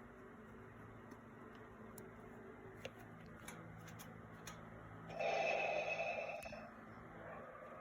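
Darth Vader respirator breathing sound played by a statue's built-in sound module: one loud breath starting about five seconds in and lasting about a second and a half, followed by a fainter breath near the end. Before it there is a low steady hum with a few faint clicks.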